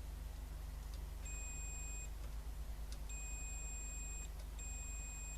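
Three electronic beeps, each a steady high tone lasting about a second, over a low steady hum.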